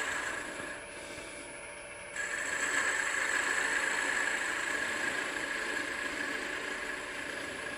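Wood lathe spinning a mahogany spindle while a turning tool cuts a dome on its end, a steady hiss of the cut over the lathe's running. The cutting sound drops away about a second in and picks up again sharply just after two seconds.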